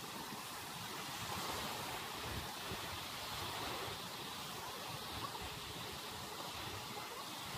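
Small waves breaking and washing up a flat sandy shore: a steady hiss of surf.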